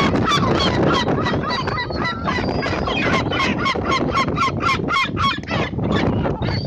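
A flock of gulls gathered to be fed, calling in rapid, overlapping short cries, about five a second.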